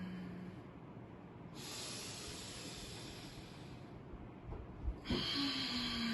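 A man doing deep pranayama breathing. There is a long forceful hissing breath, then from about 5 seconds in a second breath drawn through a narrowed throat, giving a low hum-like tone, as in ujjayi breathing.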